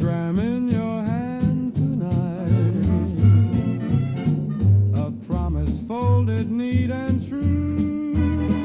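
Swing-style dance-band music in an instrumental passage: bending melody lines over a steady pulsing bass beat.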